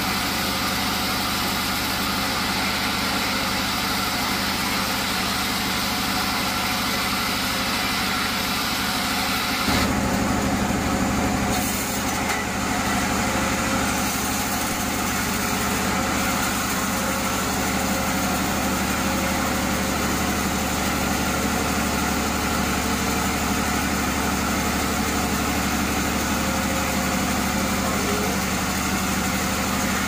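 Band sawmill running steadily, its motor humming as the band blade saws through a large burled log. About ten seconds in the sound shifts and grows slightly fuller.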